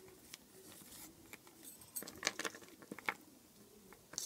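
Small polymer clay charms being handled and set down on a tabletop: a few light clicks and taps, most of them about two to three seconds in.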